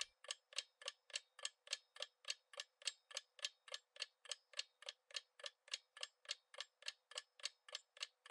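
Quiz countdown timer sound effect: faint, evenly paced clock-like ticking, about three to four ticks a second, marking the time left to answer.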